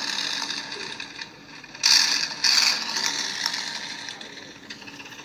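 Plastic toy dump truck loaded with rocks being pushed over loose gravel: a rattling, grinding scrape of its wheels and the stones, loudest about two seconds in, then fading.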